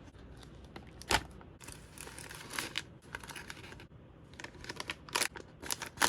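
Plastic toy molds and packaging being handled and put away: a sharp knock about a second in, a crinkling rustle, then a run of quick clicks and taps near the end.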